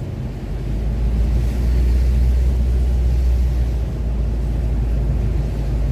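Steady low rumble of a car's engine and tyres, heard from inside the moving car, with a faint hiss over it.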